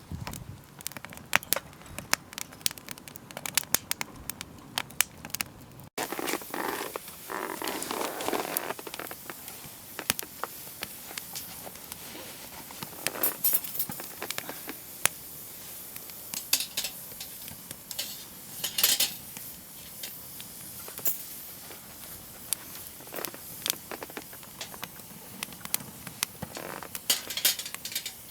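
Wood campfire burning, with scattered sharp crackles and pops. A stretch of duller rustling and handling noise comes a few seconds in.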